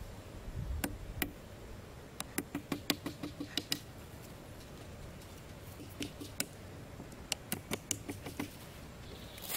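Light, sharp knocks and clicks of a small hatchet chipping and notching a wooden stick, coming in quick runs of several strikes. A brief rustle near the end.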